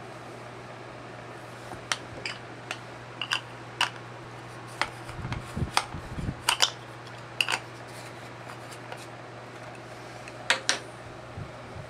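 Plastic makeup compacts and tools clicking and clattering as they are handled: about a dozen sharp clicks and taps, with a few dull thumps around the middle. Under them runs the steady hum of a room fan set on low.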